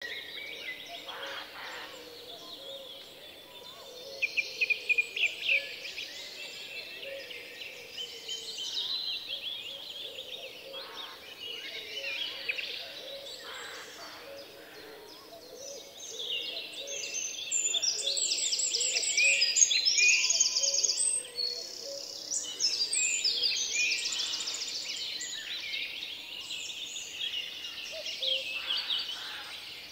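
A mixed chorus of wild birds singing and calling, with many chirps and fast trills. It grows busiest and loudest a little past halfway.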